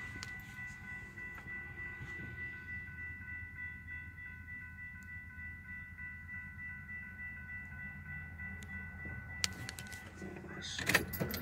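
Railroad crossing warning bell ringing steadily over a low rumble, heard from inside a car; a few clicks near the end.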